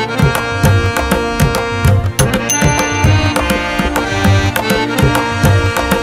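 Background music: a fast, steady percussion rhythm over sustained melodic tones.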